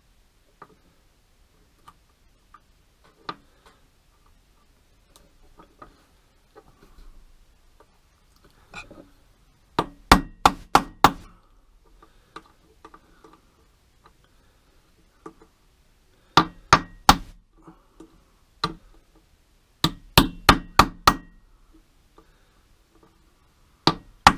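Ball-peen hammer tapping an 11/32 socket to drive a new miniature ball bearing (4 × 11 × 4 mm) into a quadcopter motor, in quick bursts of light taps with pauses between. Faint clicks of the parts being handled come before the first taps, about ten seconds in.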